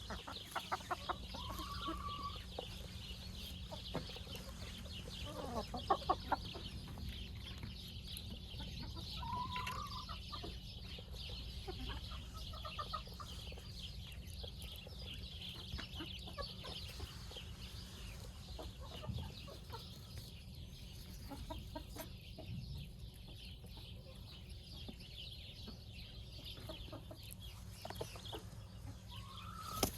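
Chickens clucking, with a few short rising calls now and then.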